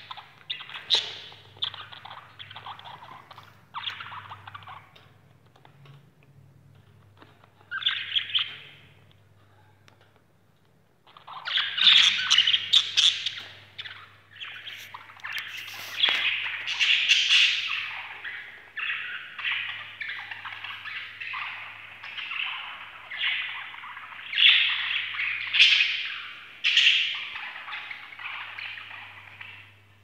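A group of budgerigars chattering and chirping in a rapid jumble of short calls, sparse and fading in the first third, then a dense stretch of chatter from about a third of the way in.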